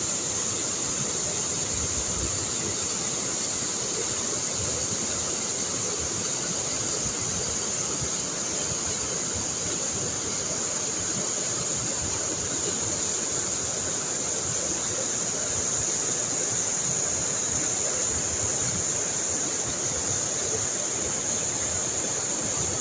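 Rushing water running steadily, with a steady high-pitched whine on top.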